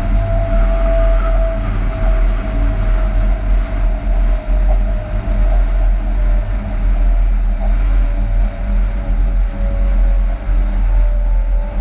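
Inside the cab of a Class 186 TRAXX electric locomotive running light: a steady low hum under a single whine that slowly drops in pitch.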